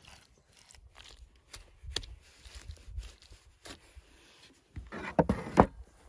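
Wooden spoon mixing grated cheese with mayonnaise in a wooden bowl: a few light clicks and knocks, then a louder run of scraping and squishing near the end.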